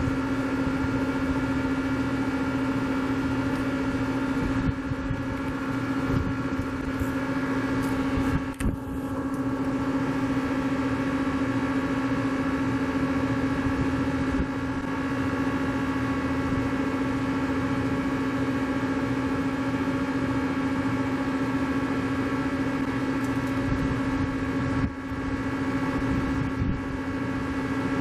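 Hitachi Seiki Hitec-Turn 20S II CNC lathe running under power: a steady machine hum with one strong tone. It dips briefly twice, once about a third of the way in and once near the end.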